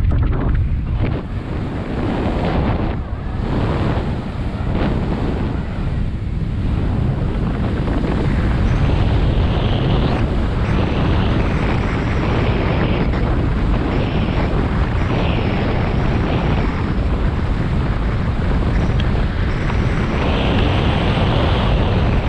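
Wind buffeting the microphone of a skydiver descending under an open parachute canopy: a steady rush of wind noise, uneven and gusting for the first several seconds, then even.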